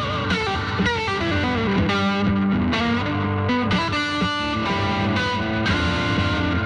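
Electric guitar playing an instrumental lead line of sustained single notes, with slides and bends that glide the pitch down and up.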